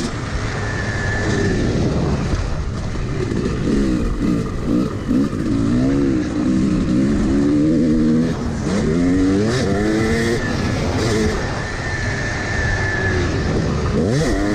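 Yamaha 250 two-stroke dirt bike engine at full race pace, its revs climbing and dropping back over and over as the rider accelerates, shifts and rolls off.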